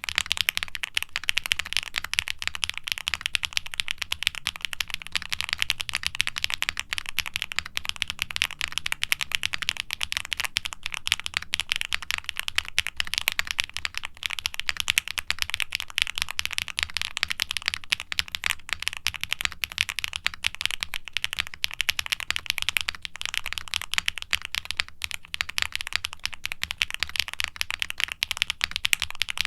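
Continuous typing on a QwertyKeys QK65 mechanical keyboard with factory-lubed HMX Poro linear switches, a polycarbonate plate and GMK doubleshot ABS keycaps: a dense, unbroken stream of keystroke clacks. The clack is somewhat muted and toned down by the board's foam and silicone dampening.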